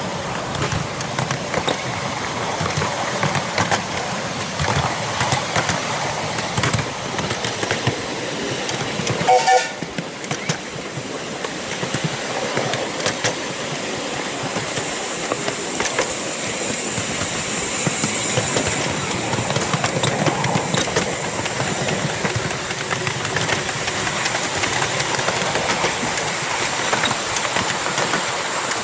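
A 7¼-inch gauge Fairlie-type miniature steam locomotive running along its track, with the steady clatter of wheels on rail heard from the footplate; a short whistle toot sounds about nine seconds in.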